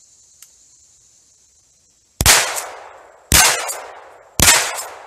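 Three rifle shots about a second apart, each followed by a fading echo.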